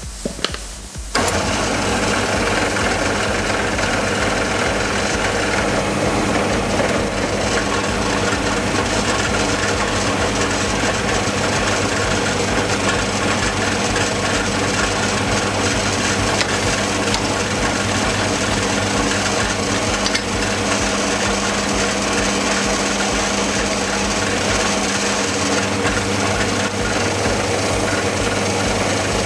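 Milling machine switched on, its milling cutter taking a single pass across a metal block clamped in the vise: steady motor and spindle noise with the scraping of the cut. It starts suddenly about a second in, just after a couple of clicks.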